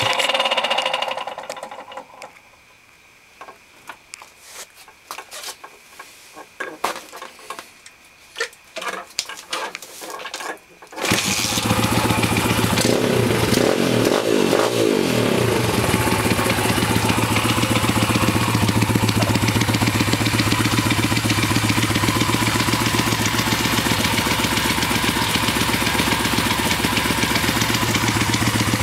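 PitsterPro X2 pit bike engine shut off, winding down in the first couple of seconds, then scattered clicks and knocks for several seconds before it starts abruptly about eleven seconds in. It is blipped up and down a few times, then settles into a steady idle; the owner hears a weird noise from it that he hasn't identified.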